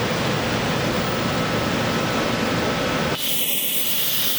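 Wood-cutting CNC router running, a loud steady machine noise. About three seconds in the sound changes abruptly: the low rumble drops out and a high hiss with a steady whine takes over.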